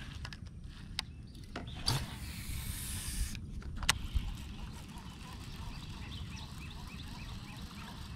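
A cast with a baitcasting rod and reel: the line hisses off the spinning spool for about a second and a half, then a sharp click near the middle as the reel is engaged. The lure is then reeled in with faint, even ticks, about four a second, over a steady low rumble.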